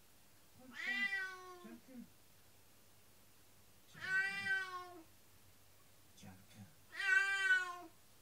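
Domestic cat meowing: three long, drawn-out meows about three seconds apart.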